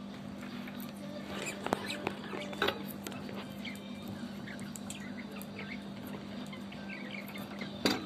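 Budgerigars chattering: a busy run of short chirps and warbles, with a few sharp clicks along the way and a steady low hum underneath.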